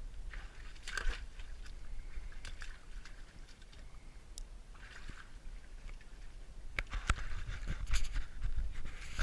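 Handling noise of a handheld camera being moved low over rock: irregular scrapes, clicks and knocks, with a low rumble of wind on the microphone. The knocks and rumble get louder after about seven seconds.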